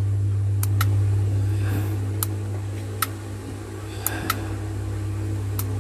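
Transformer-type soldering gun humming steadily while switched on, a low mains buzz with overtones, with several short sharp clicks scattered through.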